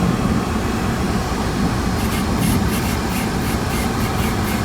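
Cabin sound of a 2008 Hyundai Santa Fe with its V6 running as the SUV creeps along, a steady low rumble. From about two seconds in, a run of light, irregular ticks joins it.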